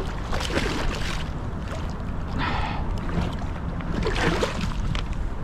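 Water splashing in several short bursts as a hooked striped bass thrashes at the surface beside a kayak, over a steady low rumble.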